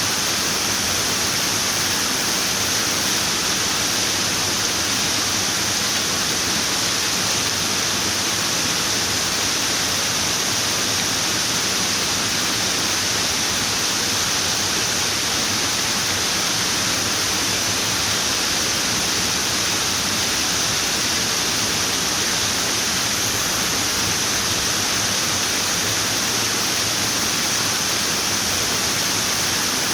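Running water flowing steadily: an even, unbroken hiss, strongest in the high treble.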